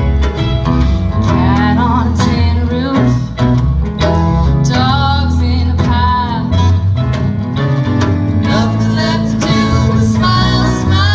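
Live rock band playing: electric guitars, bass and drums, with a voice singing over them.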